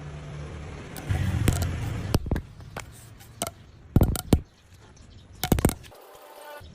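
A series of sharp knocks and clatters, with a stretch of rushing noise about a second in.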